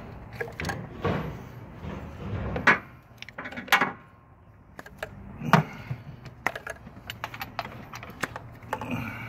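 Scattered plastic clicks and knocks as the electrical connectors on coil-on-plug ignition coils are unplugged and handled, with three louder clicks in the middle.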